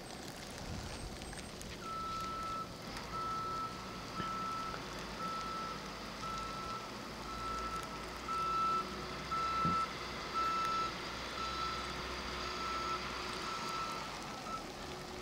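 Snowplow truck's reversing alarm beeping about once a second, one steady high tone, over the low rumble of the truck's engine: the plow is backing up.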